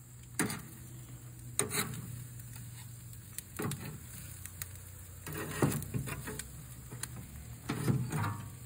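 Metal utensil clacking and scraping against a smoker's grate as smoked pig tails are moved, in irregular strokes over a steady low hum.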